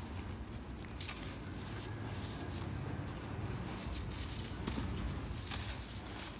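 A hand digging into and crumbling dry, powdery red dirt: soft gritty crunching and sifting, with a few sharper crackles, the clearest about a second in and again about five and a half seconds in, over a low steady rumble.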